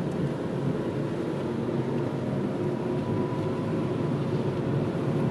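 Steady engine and tyre noise of a car driving slowly, heard from inside the cabin.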